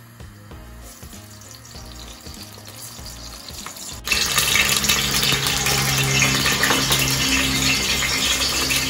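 Onions hitting hot oil in a pan, starting a loud, steady sizzle about four seconds in, under quiet background music.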